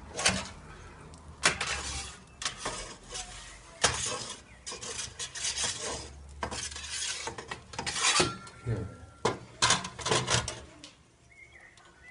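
Metal clattering and scraping as the wood-fired pizza oven's metal door is handled and fitted at the oven mouth, with irregular knocks and rubbing and a brief squeak about two thirds of the way through.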